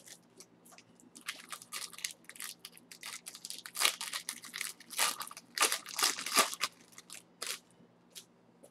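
Foil wrapper of a 2015 Bowman Draft jumbo baseball card pack crinkling and crackling in irregular bursts as it is torn open and handled. The crinkling is loudest in the middle and dwindles to a few light rustles near the end.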